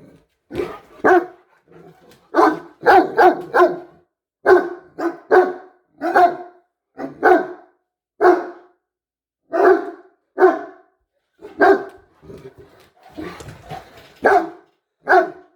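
Great Danes barking: about twenty short, loud barks, some single and some in quick runs of two to four, with brief pauses between.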